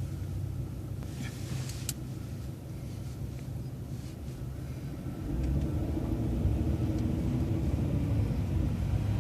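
Steady low road-and-engine rumble of a moving vehicle, heard from inside. It grows louder about five seconds in as the vehicle picks up speed, and a faint steady whine runs through the louder part.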